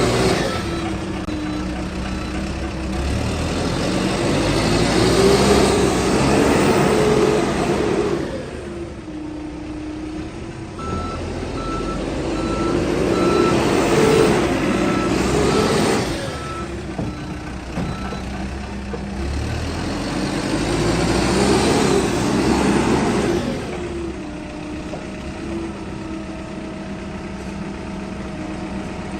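Case 695SR backhoe loader's diesel engine running, revving up and settling back to idle three times, about eight seconds apart. During the second rev there is a short run of evenly spaced beeps, about one a second.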